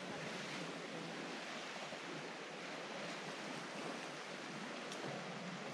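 Ocean surf washing steadily.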